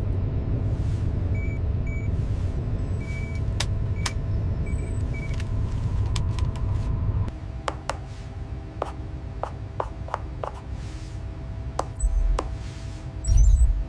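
Low mechanical rumble with a faint steady hum and short high electronic beeps; about seven seconds in the rumble drops away, leaving a string of sharp clicks and two heavy low thumps near the end.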